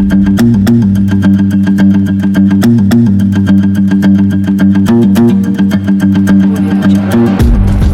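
Background music with guitar over a steady beat and a bass line; the deepest bass drops out about seven seconds in.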